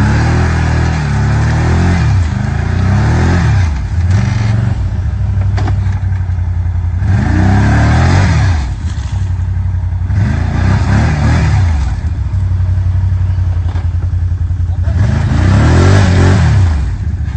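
ATV engine revved hard again and again, its pitch rising and falling with each blip of the throttle, while its tyres spin and churn through deep mud.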